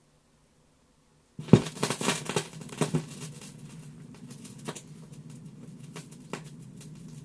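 A turntable stylus set down on a 1973 vinyl single about a second and a half in with a thump, then the crackle and pops of the record's lead-in groove over a low hum.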